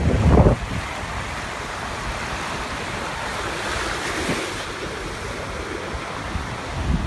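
Small sea waves washing onto a sandy shore, an even surf hiss that swells a little near the middle. Wind buffets the microphone at the start and cuts off about half a second in.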